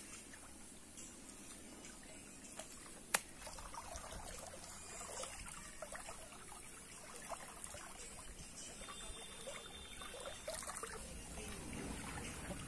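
Shallow water trickling through a narrow cut in a mud dam into a fish trap, with faint small splashes of hands working in the water. A single sharp click sounds about three seconds in.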